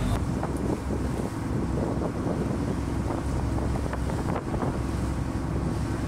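Wind rumbling on the microphone: a steady low rumble with a few faint ticks.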